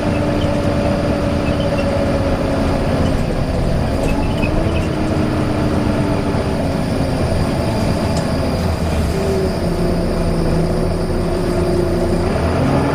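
Volvo B9TL double-decker bus running with a loud whine over its engine and road noise; the whine holds one pitch and drifts gently up and down.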